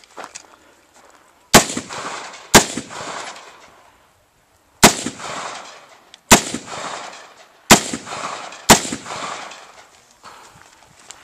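Six rifle shots fired at an irregular pace, one to two seconds apart with a longer gap after the second, each followed by a long echo.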